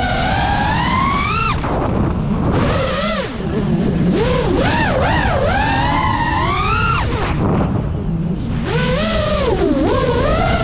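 GEPRC Mark5 FPV quadcopter's brushless motors and propellers whining, the pitch rising and falling with throttle through fast turns and climbs. The whine drops away briefly about a second and a half in, and again for about a second and a half after the seventh second, when the throttle is cut.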